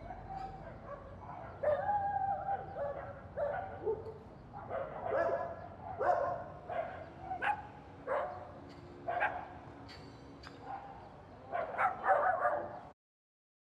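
Dogs barking and yelping in an irregular run of calls over a low background hum, cut off suddenly near the end.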